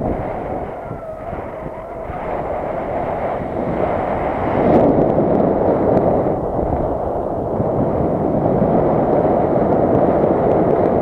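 Wind rushing over the microphone: a loud, steady rumble that swells about four and a half seconds in.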